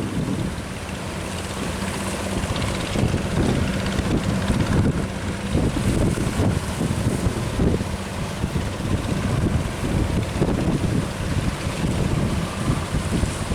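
Strong wind buffeting the microphone in uneven gusts, over a steady rush of sea and surf.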